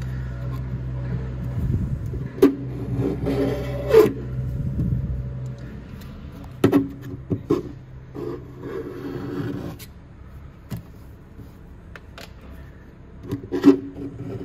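A knife scraping and picking at squeezed-out plumber's putty around a stainless-steel sink drain flange: scattered sharp clicks and scrapes of the blade on the metal, the sink ringing briefly with each. A steady low hum sits under it and fades about six seconds in.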